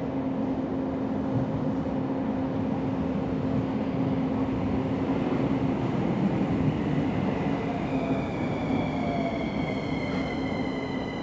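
CAF-built metro train running into an underground station: continuous rumble of wheels on rails. From about eight seconds in, a high whine slowly falls in pitch as the train slows.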